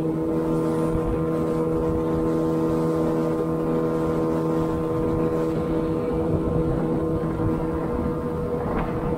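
Boat outboard motor running at a steady cruising speed, pushing an aluminium jon boat along, with wind and water noise.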